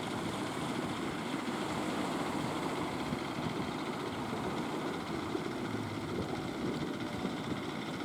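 Fishing boat engine running steadily, a continuous even rumble.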